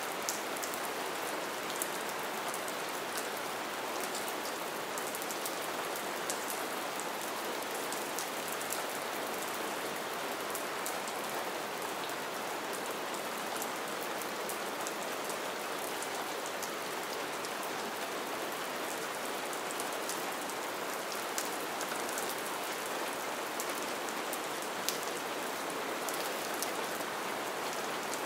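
Steady gentle rain falling, an even hiss with many small drop ticks throughout.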